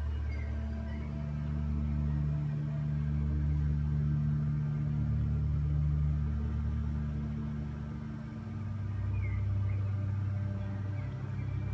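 Low, steady hum of aquarium equipment running, an air pump and filter driving a bubble curtain; the note shifts in pitch a few times, with a few faint high chirps near the start and near the end.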